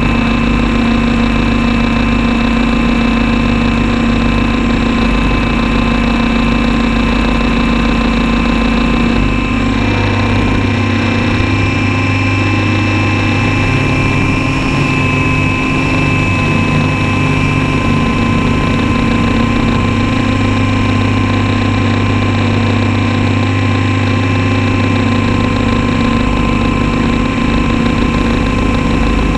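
Motor and rotor of an RC copter heard through its own onboard camera: a loud, steady drone with a constant whine, the low part shifting slightly about ten seconds in.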